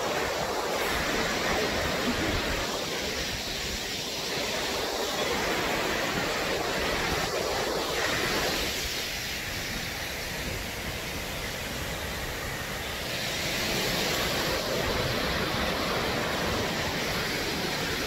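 Waterfall cascading down a rock face: a steady rushing of water that grows a little louder and brighter about thirteen seconds in.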